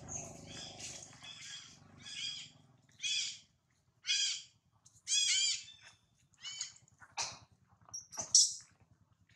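Young macaque giving a series of short, high-pitched squealing calls, roughly one a second, a few with a rising-then-falling pitch. Two sharp clicks near the end, the second the loudest sound.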